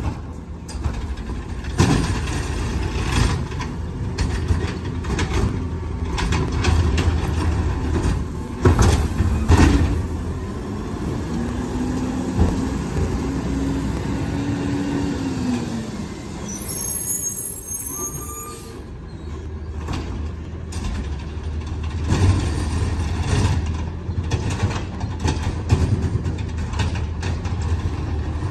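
McNeilus ZR automated side-loader garbage truck running: a steady low engine rumble with loud clanks and bangs, strongest about two seconds in and twice around the ninth second. For a few seconds near the middle, a whine rises and then falls.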